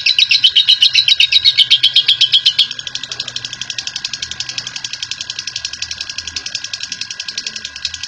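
Lovebird in a long unbroken 'ngekek' chatter: a rapid, high rattling trill of about ten notes a second. About three seconds in it becomes quieter and thinner and carries on at the same pace.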